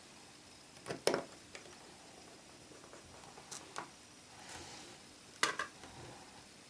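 Small metal tools and phone parts clicking and tapping against an opened iPhone 4 as its bracket is lined up and screwed back in. The sound is three separate bursts of sharp clicks: about a second in, a fainter pair around three and a half seconds, and a loud pair about five and a half seconds in.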